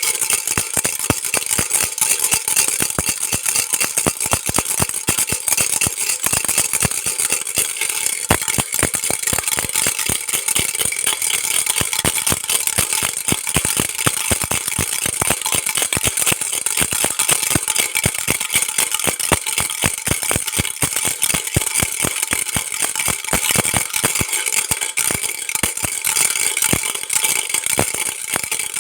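Baby rattle shaken without a break: a dense, steady stream of quick small clicks and rattles.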